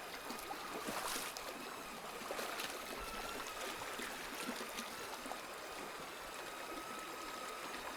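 Small mountain creek flowing and trickling over rocks, a steady even rush of water with a faint thin high tone running underneath.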